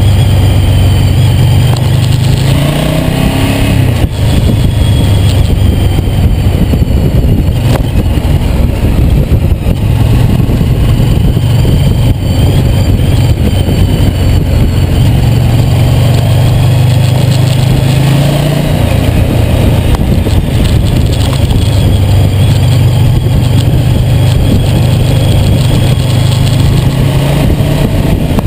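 Ducati GT1000's air-cooled L-twin engine running under way, its note dropping and picking up again a few times as the bike changes speed.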